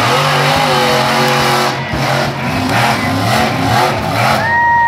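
Bigfoot monster truck's engine revving hard, its pitch rising and falling as the throttle is worked. About four and a half seconds in, a separate high tone comes in and is held briefly.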